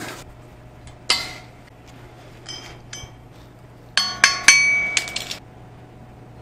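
Steel hitch receiver and square-tube crossbeam knocking and clinking together as the pieces are shifted into position: a sharp metal clank about a second in, two light clinks, then a quick run of ringing metal clanks about four seconds in.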